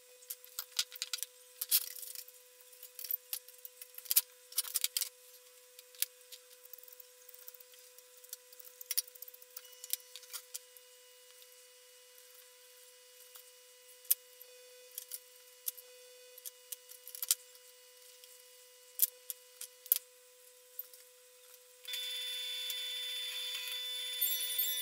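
Light clicks, rustles and scrapes of hands handling stiff wires and a utility knife working at wire insulation, coming in bursts with pauses, over a faint steady tone. A steady hiss comes in near the end.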